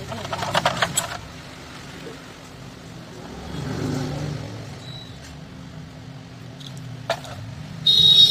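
A quick run of scraping clicks about half a second in, as a cut power-cable wire is cleaned by hand. A low rumble swells and fades around the middle, and a short, loud high-pitched tone sounds near the end.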